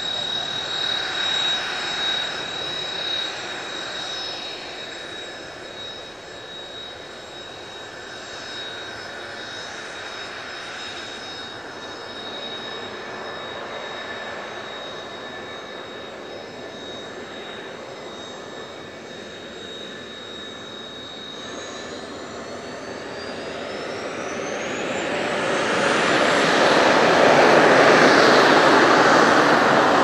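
Kawasaki T-4 jet trainer's twin turbofan engines running with a steady high whine. About three-quarters of the way through, the engines spool up: the whine rises steeply in pitch over a few seconds and the jet noise grows much louder.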